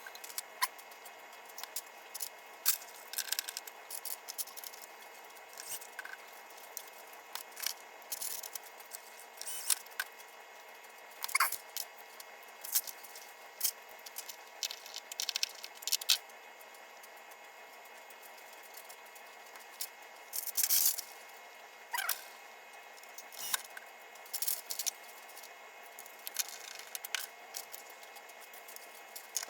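Irregular clicks, clinks and scrapes of small metal parts and hand tools being handled while assembling a pinball playfield, with a few short metallic pings.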